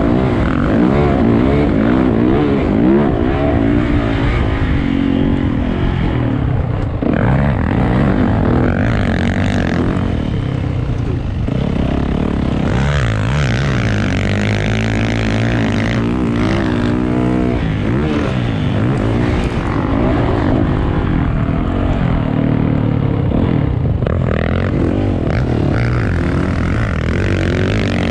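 A vehicle engine running hard and revving up and down the whole time, its pitch rising and falling with the throttle, over a steady rush of noise.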